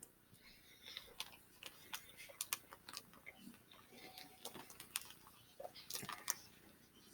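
Tuna pasta salad being eaten fast: irregular sharp clicks of silverware mixed with chewing, faint throughout.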